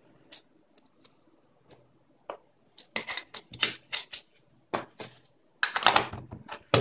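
Red aluminium-alloy fidget spinner stopped by hand with a sharp click, then a run of clicks, taps and light metallic clatter as it is pressed into its foam-lined metal tin and the tin's lid is fitted, ending in a loud clack as the lid shuts.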